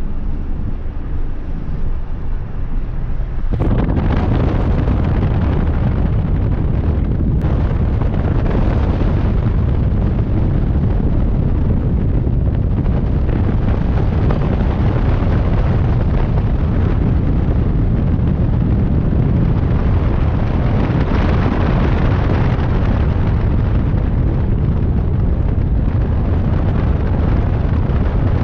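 Wind buffeting the camera microphone: a loud, steady rumble that jumps up about three and a half seconds in and holds.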